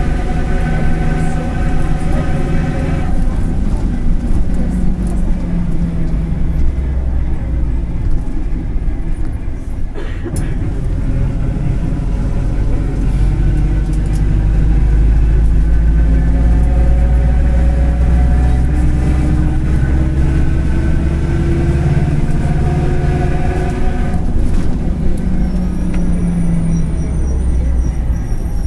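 Mercedes-Benz OF-1721 city bus's four-cylinder diesel engine running under way, its revs dropping early on, then climbing and falling again as it pulls through the gears, over a steady low rumble. A bearing growls underneath, a sign that it is worn. There is a short click about ten seconds in.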